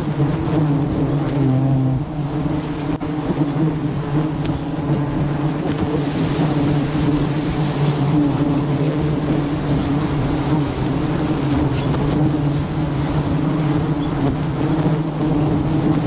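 A swarm of bees buzzing around a wild honeycomb as it is cut, a steady low drone.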